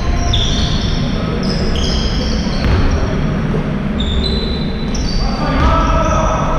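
Basketball game sounds: sneakers squeaking in short, high-pitched chirps on the gym floor over the thud of running footsteps and the ball bouncing as it is dribbled.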